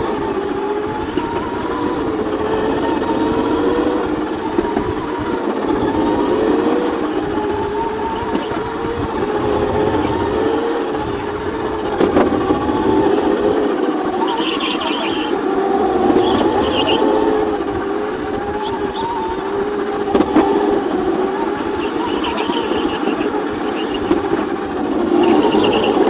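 Electric drift kart's brushless motor whining at speed, its pitch rising and falling as the throttle comes on and off through the drifts. Short squeals come several times in the second half as the wheels slide on the pavement.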